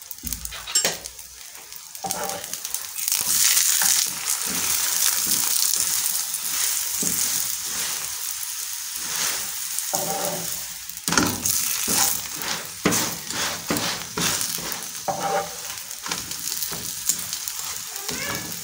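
A radish-stuffed paratha frying in oil on a tawa, sizzling steadily. The sizzle swells about two seconds in, and from about halfway a metal spatula scrapes and knocks against the pan several times as the paratha is pressed.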